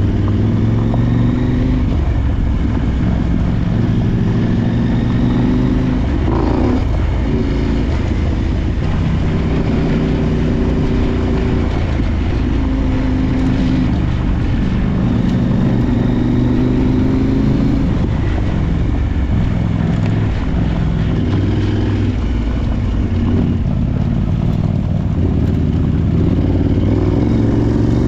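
Adventure motorcycle's parallel-twin engine running while riding off-road, its pitch climbing and dropping over and over with the throttle, over a constant low rumble.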